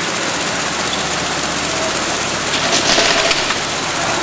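Modular plastic belt conveyor and roller-top sorting belt running, a steady mechanical noise, with a brief louder clatter about three seconds in as an item lands on the belt.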